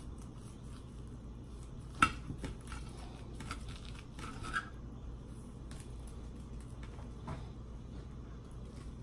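Steak knife sawing through a T-bone steak and clinking against the plate beneath, with one sharp clink about two seconds in and a few lighter taps and scrapes after.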